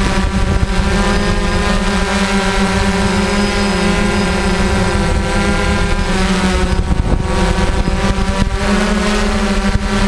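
DJI drone's motors and propellers whining in flight, a steady stack of tones whose pitch shifts and partly drops away around the middle as the drone manoeuvres, with wind rushing over the microphone.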